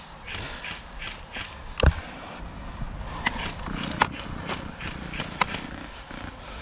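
Footsteps of a player moving during an airsoft game, with scattered sharp cracks from the game around him.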